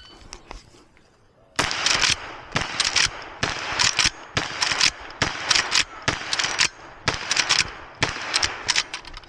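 Henry Big Boy X lever-action rifle in .38 Special firing a fast string of shots, beginning about a second and a half in and coming roughly two to three a second until near the end.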